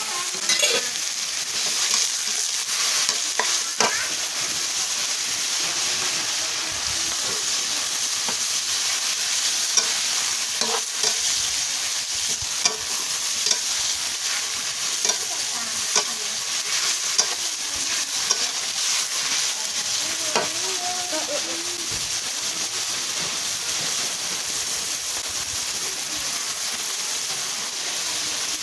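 Pad thai rice noodles sizzling in a steel wok as a metal ladle stirs and tosses them, with short sharp clinks of the ladle against the wok every second or two.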